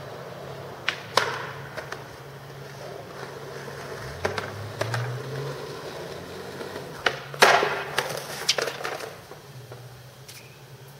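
Skateboard on smooth concrete: wheels rolling, tail pops and sharp wooden clacks of the deck, with the loudest clattering crash about two-thirds of the way through as the board slaps down and tumbles after a missed trick. A steady low hum runs underneath.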